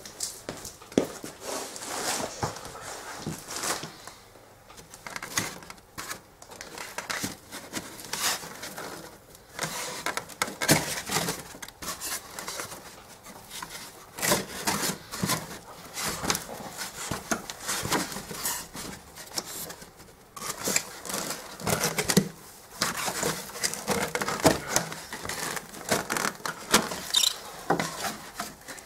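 Packing materials being handled and pulled out of a 3D printer: foam blocks, plastic and tape rustling and crinkling, with irregular clicks and knocks throughout.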